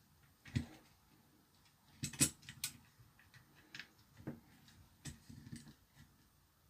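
Scattered light clicks and taps of small tools and parts being handled during a repair, the loudest a sharp click about two seconds in.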